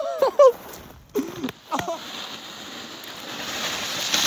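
A couple of brief voice exclamations, then the hiss of a snowboard sliding over snow, growing steadily louder over the last two seconds as the rider comes in close.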